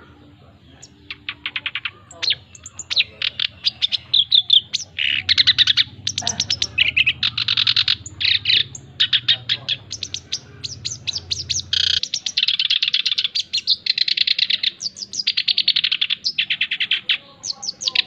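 Male black-browed reed warbler singing in a cage: a long, lively run of rapid high chattering trills and repeated notes, starting about a second in and hardly pausing.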